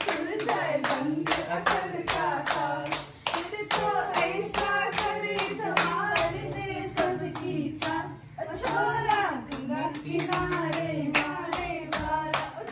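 Hands clapping in a steady rhythm, about three to four claps a second, along with a voice singing a melody.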